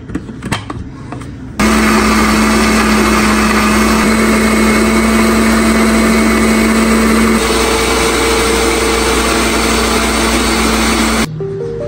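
Electric mixer-grinder (blender) switched on, its motor running loud and steady as it grinds fresh coriander, mint, green chillies and garlic with a little water into green chutney. Its note changes about seven seconds in as the load shifts, and it stops abruptly near the end. A few light knocks come before it starts.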